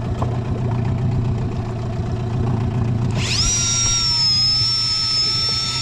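Boat engine running steadily. About three seconds in, a high whine rises quickly, then holds steady.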